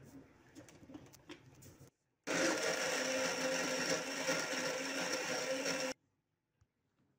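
Mini blender motor running steadily for about three and a half seconds, blending raw almonds and water into almond milk, then cutting off abruptly. A few faint clicks come before it.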